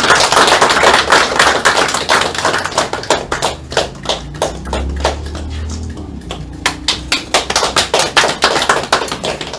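Applause from a small group of people: hand claps, dense for the first few seconds, thinning out around the middle, then picking up again.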